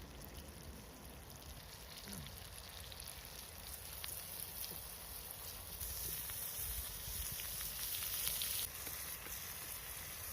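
Food sizzling over a campfire, a steady hiss with small crackles. The hiss grows louder about six seconds in and drops back suddenly near nine seconds.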